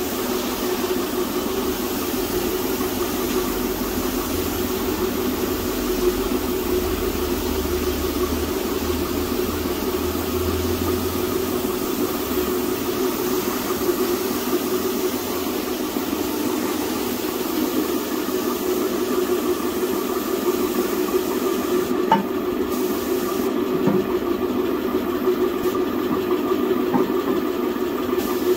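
Paint spray gun hissing, driven by a steadily running air compressor that gives a constant hum. Near the end the high hiss drops out briefly a few times.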